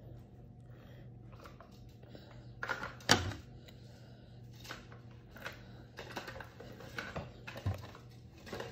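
Light, irregular clicks and taps at a toddler's meal, with one sharper knock about three seconds in, over a low steady hum.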